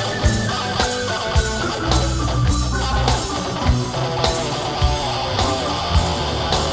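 Rock band playing an instrumental passage without vocals: guitar and bass holding low notes over a drum kit hitting a steady beat a little under twice a second.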